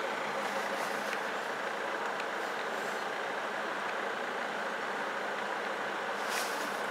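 Steady noise of road traffic queued at a closed level crossing.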